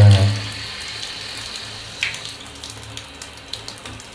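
Water running from a small adjustable swivel sprayer head fitted to a tap: a steady hiss of spray, with a brief low-pitched sound at the very start and a small click about two seconds in.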